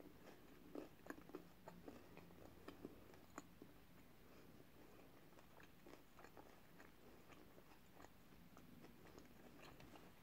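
Faint chewing with closed mouth: soft, scattered mouth clicks from a person working through a mouthful of a small soft-roll sandwich bite.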